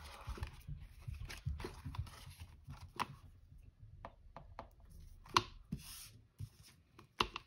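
Faint rustling and scraping of Canadian polymer banknotes and clear plastic binder pockets being handled, with a few sharp clicks and taps scattered through.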